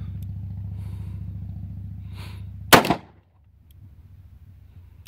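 Smith & Wesson Model 625 .45 ACP revolver fired double action: one sharp shot about two and a half seconds in, with a second shot landing right at the end. A steady low hum runs under the opening and falls away after the first shot.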